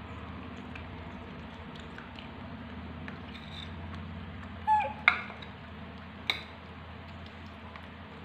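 Small clicks and handling noises from baby macaques picking at pomegranate over a steady low hum, with one short, high squeak from a monkey about halfway through, followed by two sharp taps.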